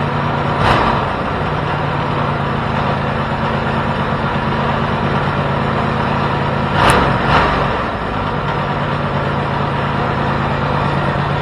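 Home-built 424cc inline-twin engine, two Predator 212 single-cylinder four-strokes coupled together, idling steadily on its first run with the idle set a bit high. It is blipped up briefly about a second in and twice in quick succession about seven seconds in.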